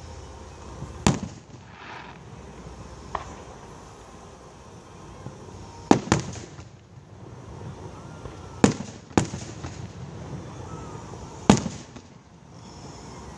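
Aerial fireworks bursting: about seven sharp bangs spaced a few seconds apart, some in quick pairs, each trailing off in a short rumble.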